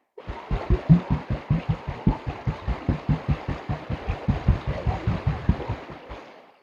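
Gold pan of wet gravel shaken in rapid, even strokes, a fast steady rhythm of low sloshing thumps, about seven a second, settling the heavy material to the bottom of the pan.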